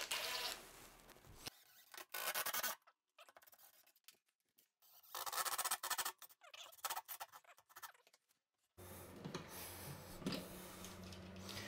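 Metal hanger bolts being driven and turned into the wall for a pedestal sink: two short bursts of rasping, clicking metal, about two and five seconds in. A low steady hum comes in near the end.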